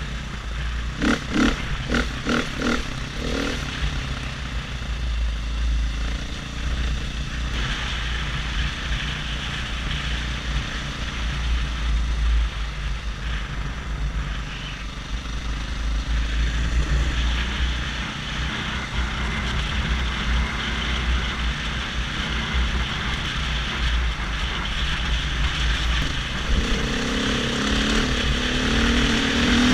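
KTM 500 EXC single-cylinder four-stroke dirt bike running under way, heard from the rider's helmet with heavy wind rumble on the microphone. Near the end the engine pitch rises as the bike accelerates.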